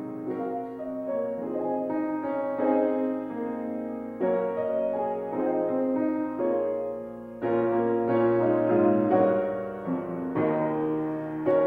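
Keyboard music: held chords on a piano-like keyboard, with a new chord struck about every three seconds.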